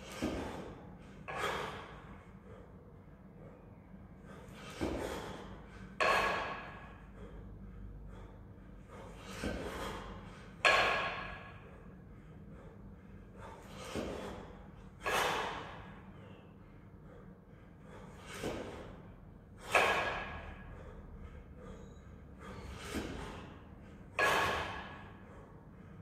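A man breathing hard and forcefully through a set of double kettlebell jerks. There are two sharp breaths with each rep, and one rep comes about every four and a half seconds, six reps in all.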